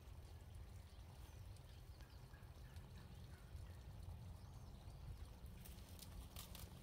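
Near silence: a faint, steady low rumble of outdoor ambience, with a few faint clicks near the end.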